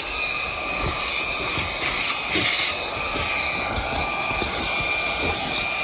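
Meco Eleverde cordless handheld brushless vacuum running steadily with a high whine while sucking up debris, with small knocks scattered throughout.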